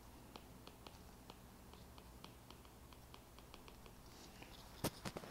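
Faint tapping and clicking of a stylus tip on a tablet's glass screen during handwriting, with one sharper, louder click near the end.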